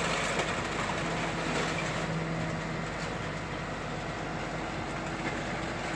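Rear-loading garbage truck running steadily as its hydraulic bin lifter tips a wheelie bin: a constant engine and machinery hum.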